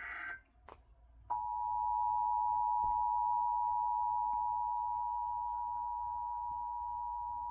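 Emergency Alert System two-tone attention signal (853 Hz and 960 Hz sounded together), a steady tone starting about a second in, announcing an EAS message. Just before it, a brief burst of the SAME digital header's data tones cuts off.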